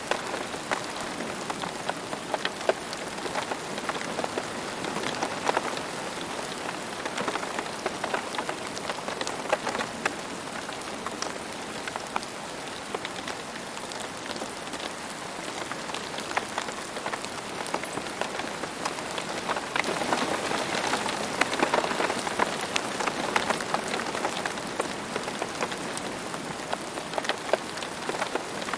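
Steady rain falling, many close raindrops pattering on a surface, a little heavier about two-thirds of the way through.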